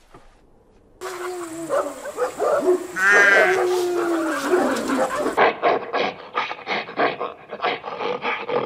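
Domestic geese honking and calling for about four seconds: loud overlapping calls that bend up and down in pitch. About five seconds in these give way to a fast, even series of short sharp sounds, roughly five or six a second.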